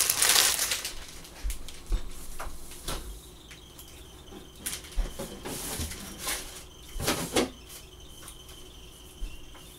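Kitchen handling sounds: a brief rustle close to the microphone, then scattered knocks and clatters as a refrigerator door is opened and items are taken out.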